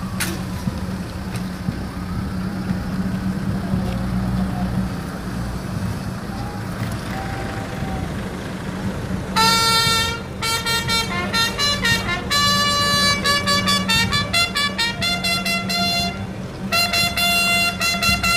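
A military bugle call: a run of short, clipped brass notes that starts about nine seconds in, breaks off briefly near the end and resumes. Before it, a vehicle engine idles with a steady low hum.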